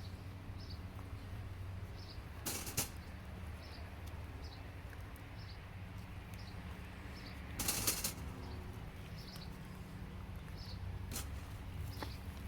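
Two short bursts of rustling and scraping, from hands digging potatoes out of soil and foliage, over a steady low hum. A bird gives short high chirps about once a second.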